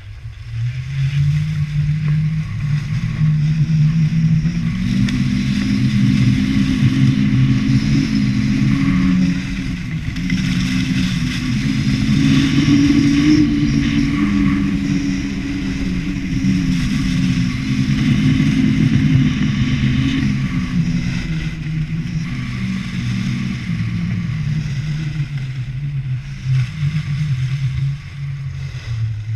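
Skis running down a groomed snow slope, heard on a pole-held action camera: a loud steady low hum with a scraping hiss above it, wavering slightly in pitch and dropping off near the end.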